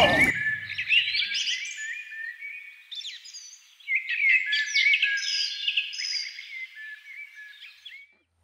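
Woodland songbirds singing, with many quick chirps and whistled phrases overlapping; the birdsong stops abruptly near the end. In the first second the tail of a music sting dies away.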